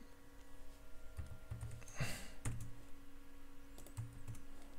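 Faint computer keyboard keystrokes and mouse clicks as code is edited and saved, scattered taps rather than fast typing. A short rush of noise, like a breath, comes about two seconds in.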